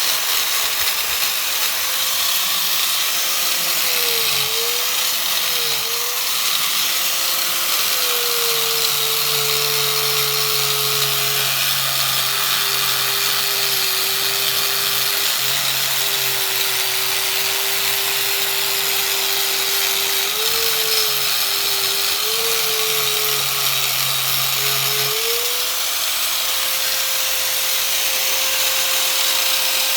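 Angle grinder polishing a Honda C70's aluminium engine case: a steady hiss of the wheel on the metal under a motor whine whose pitch sags and wavers several times, then holds steady near the end.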